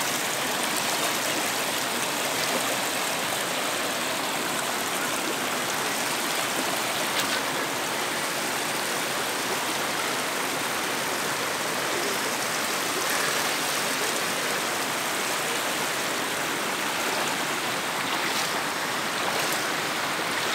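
Shallow, clear stream flowing over a stony bed: a steady sound of running water.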